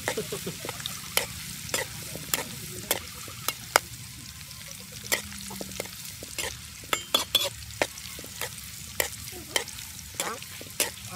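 Hot oil sizzling steadily in a metal wok as sliced greens and chilies fry, with repeated sharp clinks and scrapes of a metal spatula against the wok as it stirs, irregularly, about one or two a second.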